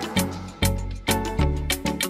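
Background music with a steady beat: regular drum hits over a bass line and held pitched notes.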